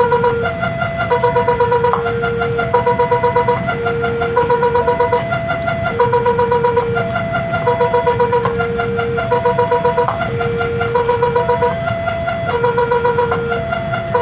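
Level-crossing warning siren malfunctioning: a choppy electronic sequence of beeps jumping between a few pitches, some notes held and some stuttering rapidly, repeating over and over. Road traffic rumbles underneath.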